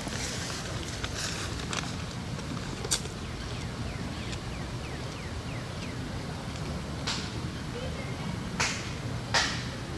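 Steady low outdoor rumble with several sharp clicks or snaps scattered through it, the loudest near the end.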